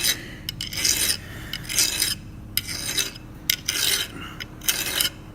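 Hand file rasping back and forth on the welded steel end of a Stihl FS 91 R string trimmer's inner drive shaft, in repeated strokes about two a second. The weld build-up is being filed back to four flat sides so the worn square end fits the clutch again.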